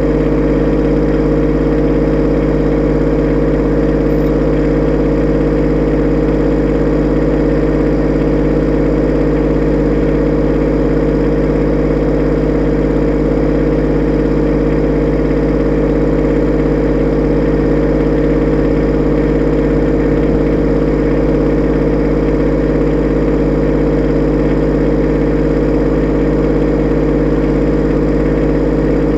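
Kubota B2601 compact tractor's three-cylinder diesel engine idling steadily.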